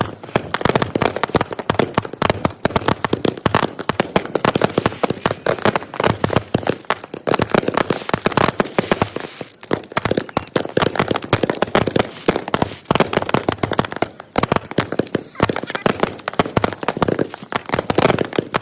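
Dense, rapid bangs and pops of consumer fireworks and firecrackers, sped up threefold so the reports run together into a near-continuous crackle.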